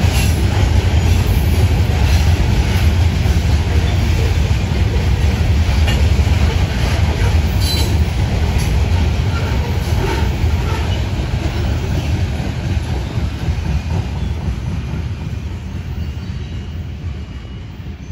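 Grain train's covered hopper cars rolling past: a steady low rumble of steel wheels on rail with occasional sharp clicks. The rumble fades over the last few seconds as the end of the train passes.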